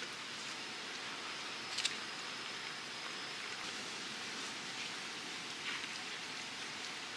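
Steady outdoor hiss of background ambience, with a sharp click a little under two seconds in, a softer one near six seconds, and a faint thin high tone in between.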